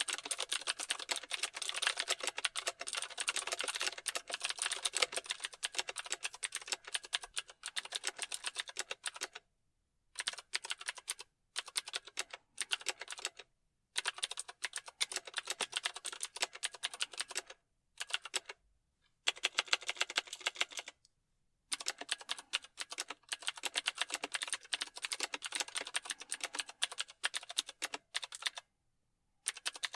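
Fast typing on a computer keyboard: dense runs of key clicks broken by several short pauses, the first about nine seconds in.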